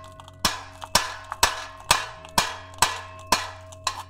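Steady hammer blows on a punch, about two a second, driving a rusted, seized exhaust bolt out after its head has been ground off. Each blow has a sharp metallic ring.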